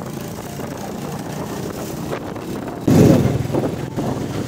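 Honda motorcycle engine running while riding, with road and wind noise. About three seconds in the sound jumps suddenly louder and rougher.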